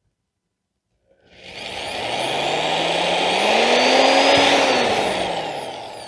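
A motor that swells up about a second in and fades away near the end, its pitch rising and then falling.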